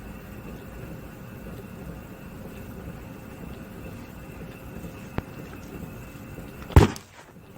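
Punches landing on a heavy sandbag, spaced apart: a short sharp smack about five seconds in and a heavy thud near the end, the loudest hit, over a steady low rumble.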